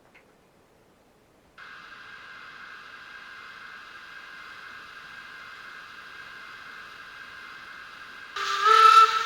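Sound decoder of a Fleischmann BR52 N-scale model steam locomotive, through its small onboard speaker: a steady steam hiss switches on about a second and a half in, and near the end a loud steam whistle sounds for about a second over it.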